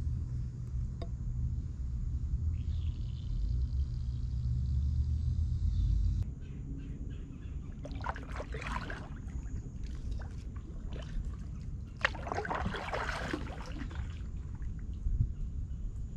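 A kayak paddle dipping and pulling through creek water, with two splashy strokes about eight and twelve seconds in. For the first six seconds a low rumble sits under it, and it stops suddenly.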